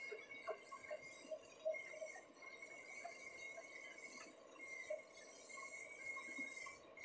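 Large engine lathe turning a metal ring, with a faint high whine from the cut that comes and goes and scattered light ticks and clinks.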